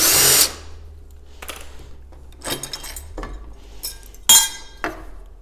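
A power drill-driver runs for about half a second, backing out the screws that hold a sliding patio door's handle. Then come a series of sharp metal clinks and light knocks as the handle and its loose hardware are taken off the panel. The loudest clink falls about four seconds in.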